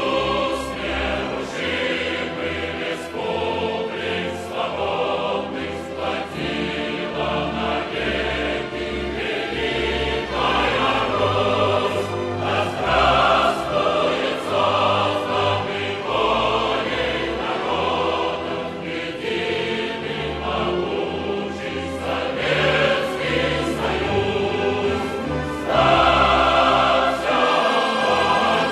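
Background music: a choir singing sustained chords over instrumental backing.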